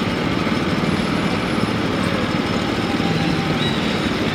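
A steady engine running without change in speed or level.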